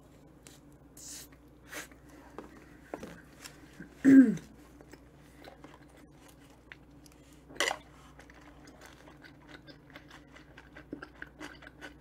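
Close-up chewing of a soft sandwich, with small wet mouth clicks throughout, then sipping through a straw from a small drink carton. About four seconds in, a short hum from the eater drops in pitch and is the loudest sound; a sharp smack follows a few seconds later.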